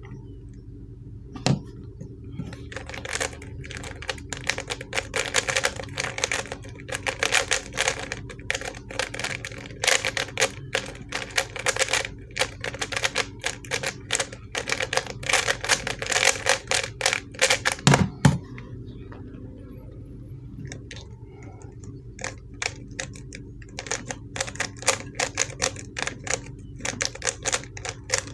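ShengShou 3x3 speed cube clicking rapidly as its plastic layers are turned at speed in a timed solve, a cube the owner finds very hard to turn. The turning starts after a thump at the beginning and stops with another thump about 18 seconds in, the timer being started and stopped. After that the turns come sparse and slow, and fast turning picks up again near the end.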